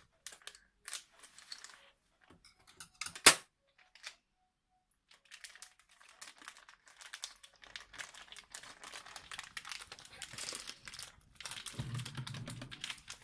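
Plastic packaging crinkling and rustling as a toy game's box is worked open with scissors. There is a sharp click about three seconds in and a short pause, then steady crinkling.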